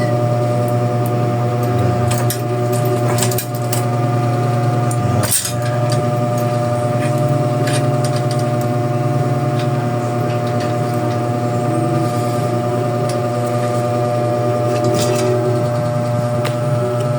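A steady electrical hum runs throughout, with a few sharp metallic clicks and clinks scattered through it from bicycle chain and derailleur parts being handled.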